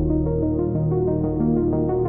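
Ambient synthwave music: layered analog-style synthesizers holding sustained pads and notes that shift in pitch every fraction of a second, with no drums.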